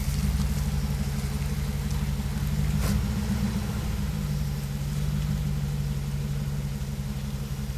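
Off-road 4x4's engine running steadily at low speed, with one sharp click about three seconds in.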